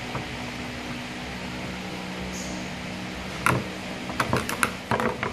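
Hand tools clattering on a stainless steel workbench: one sharp metallic knock about three and a half seconds in, then a quick run of clicks near the end, over a steady background hum.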